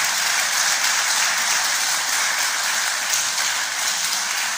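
Audience applauding steadily: dense, even clapping from a seated crowd at the close of a lecture.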